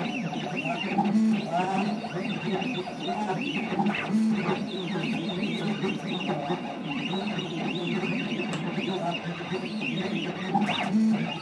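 Stepper motors of a DIY CNC machine whining in shifting, gliding pitches as the machine traces the curves of a drawing with a spring-loaded drag-engraving needle on acrylic.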